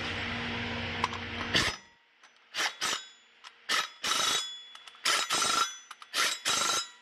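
Impact wrench tightening flywheel bolts on a Toyota 5E-FE crankshaft, fired in short bursts, mostly in pairs with brief pauses between them. A steady noise runs before the bursts and cuts off under two seconds in.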